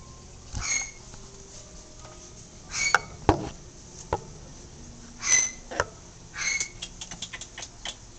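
A yellow-naped amazon parrot working at its hanging wooden-block toy with its beak: scattered clicks and knocks, with a few short metallic clinks from the toy.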